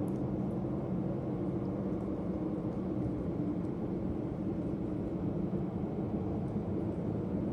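Steady low droning hum from the sky, several low tones held over a rumbling haze, of unknown source.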